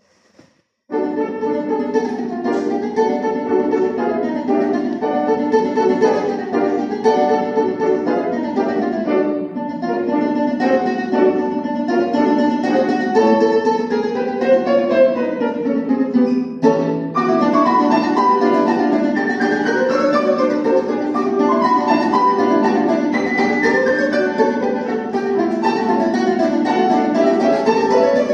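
Alto domra and C. Bechstein grand piano playing together, starting about a second in: the domra plays quick runs of plucked notes over the piano accompaniment.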